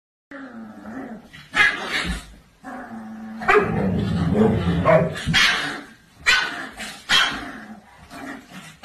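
A dog barking repeatedly in sharp, separate barks, with a longer low drawn-out call around the middle.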